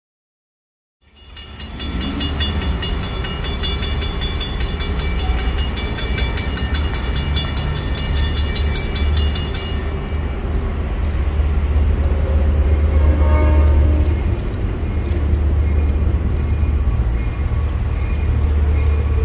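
Railroad grade-crossing warning bell ringing in rapid, even dings, fading in after about a second of silence, over a loud steady low rumble.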